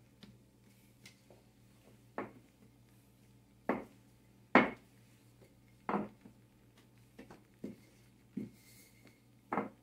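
Wooden rolling pin knocking and rolling on a countertop as flour-tortilla dough is rolled out: about ten sharp, irregular knocks, the loudest about halfway through, over a faint steady hum.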